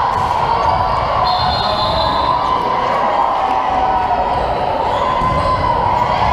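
Gymnasium noise during a volleyball match: a steady wash of echoing voices from players and spectators, with ball thuds on the hard floor.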